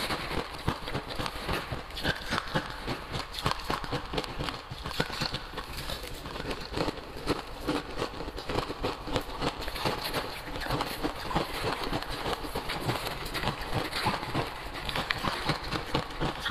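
Crushed ice being chewed and scooped with a spoon from a plastic jug: dense, irregular crunching and crackling.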